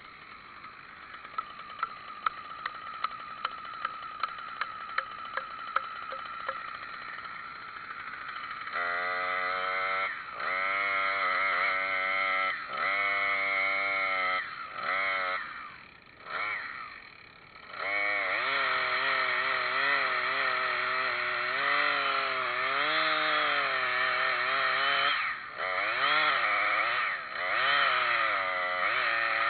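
Gas chainsaw: a faint steady hum with light regular ticks at first, then, about nine seconds in, revving hard in repeated bursts, its pitch dipping and rising, with short breaks around the middle.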